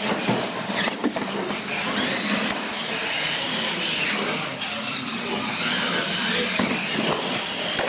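Radio-controlled monster trucks racing across a concrete floor: the whine of their electric motors and gears rises and falls, with a few short knocks as they go over the ramps.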